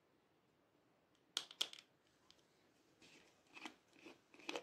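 A small plastic bottle with a pig-head cap being handled and twisted open: two sharp plastic clicks about a second and a half in, then a run of softer clicks and rustles near the end.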